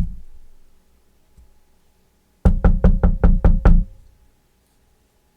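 A fast run of about seven hollow, knock-like pops made with the mouth, roughly five a second, as a vocal sound effect.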